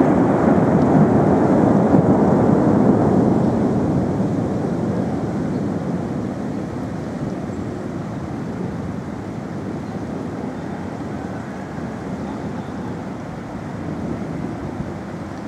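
The tail of a thunderclap rumbling low and fading slowly over the first several seconds, giving way to steady wind buffeting the microphone.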